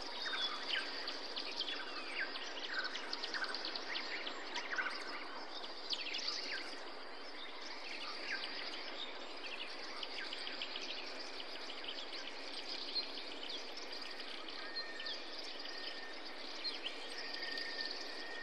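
Steady hiss of running water, with many birds chirping and calling over it in quick, irregular short notes. A thin steady whistling tone comes in during the last few seconds.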